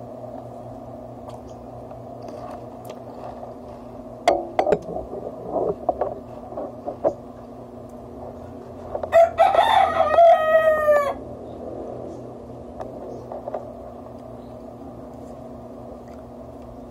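A rooster crows once, a call of about two seconds that drops in pitch at the end. A few seconds earlier there are some short clicks and knocks.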